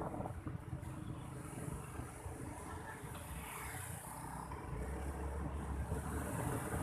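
Wind rushing over the microphone with the low, steady rumble of a motorbike being ridden through light city traffic. The low rumble swells about five seconds in.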